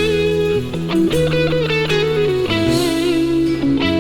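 Live band music: an electric guitar plays a slow melodic line of held notes over steady low bass notes.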